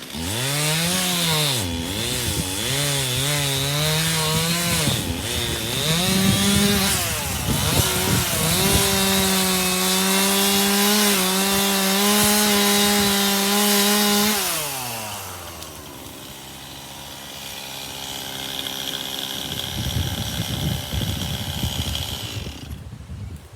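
Two-stroke chainsaw revving in short bursts, then held at high speed for about six seconds while cutting ash wood. About two-thirds of the way through it drops back to a lower idle.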